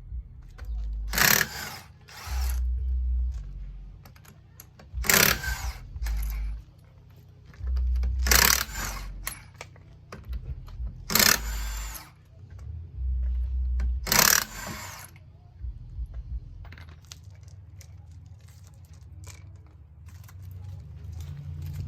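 Impact wrench run in five short bursts, spinning lug nuts off a wheel, with metal clinks and handling knocks between bursts.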